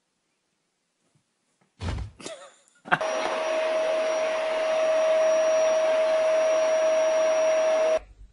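A couple of knocks, then a small electric motor running steadily with a loud whining hum. It starts abruptly about three seconds in and cuts off suddenly near the end.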